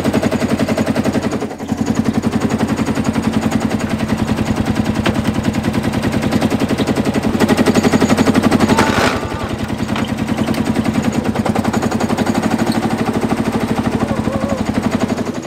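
Old tractor engine running while the tractor drives along, a loud, rapid, even chatter of exhaust pulses from its upright stack. It grows louder for a couple of seconds around the middle, then eases back.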